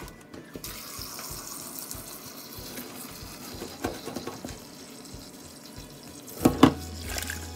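Tap water running into a metal saucepan of boiled potatoes in a stainless-steel sink, the stream starting about half a second in. A loud knock near the end.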